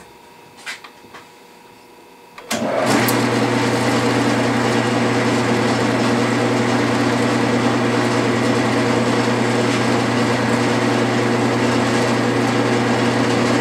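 Metal lathe switched on about two and a half seconds in, then running steadily at slow speed in reverse with a steady gear hum. The half nut is engaged so the carriage feeds at 8 threads per inch, winding stainless steel wire into a coil on a mandrel in the chuck.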